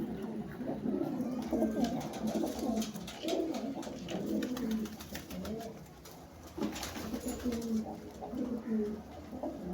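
Pigeons cooing repeatedly in low, warbling calls, with light scattered clicks.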